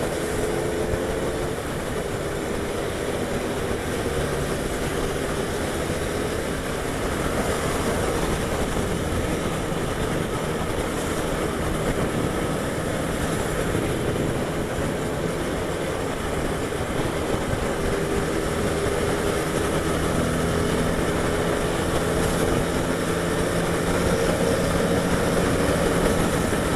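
Honda Twister motorcycle's single-cylinder engine running under way at a fairly even cruising speed, its pitch drifting slightly, over steady wind rush on the onboard microphone.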